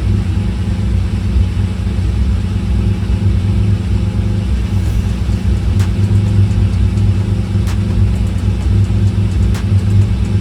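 Lamborghini Murciélago V12 engine running steadily with a low, even rumble.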